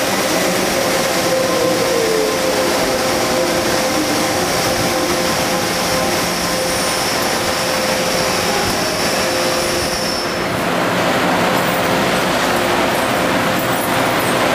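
Electric metro trains at a platform, with steady rushing wheel-and-rail noise and a constant electric whine. About ten seconds in, the sound changes abruptly to a broader, brighter rushing noise as the picture turns to a Tung Chung Line train.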